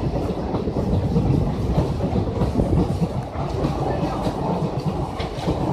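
Express passenger train running on the track: a steady rumble with the clatter of its wheels over the rails.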